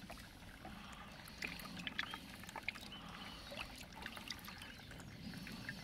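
Hand moving through shallow water in a plastic bucket, with small scattered splashes and drips.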